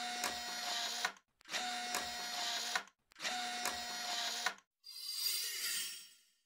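Logo intro sound effect: three identical buzzing bursts of about a second each, each with a steady hum through it, then a hiss that fades out.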